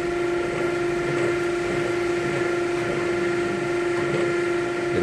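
Head-machining spindle turning a multi-step cutter as it feeds slowly down over a valve guide into a cast iron cylinder head, cutting the valve spring seat and the seal boss in one pass. A steady, even tone with a light hiss under it.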